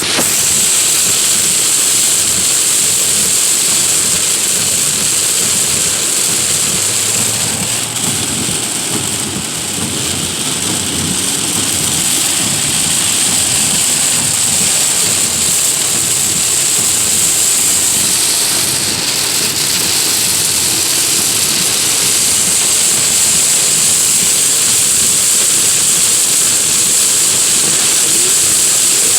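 Heavy rain falling steadily, a loud, constant hiss.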